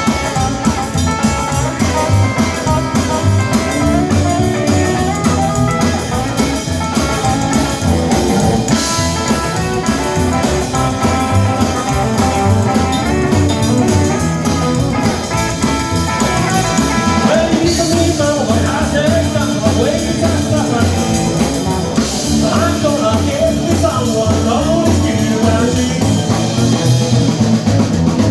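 Live rock and roll band playing an instrumental break between sung verses, with electric guitar over a steady drum kit beat.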